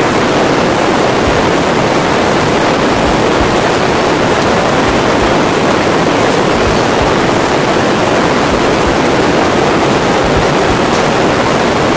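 Steady, loud, even noise of a Eurostar light aircraft in flight: engine and rushing air heard from the cockpit, with no distinct engine note standing out.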